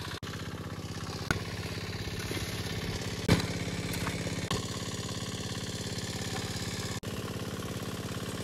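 Small engine-driven water pump running steadily with an even pulsing beat while pumping water out through its pipe. A spade knocks into the mud a few times, the sharpest knock about three seconds in.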